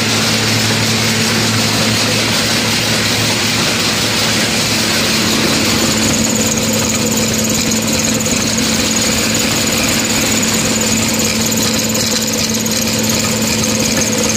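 Atta chakki flour mill running steadily as grain feeds from its hopper into the grinder: a loud, even machine drone with a constant hum. A thin high whine joins about six seconds in.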